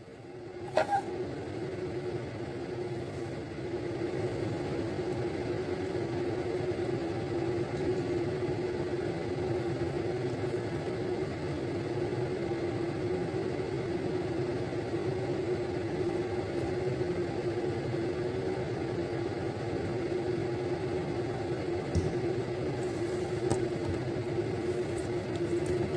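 Wansa electric countertop blender running steadily as it blends a liquid dessert mixture, a constant motor whir that starts with a click about a second in.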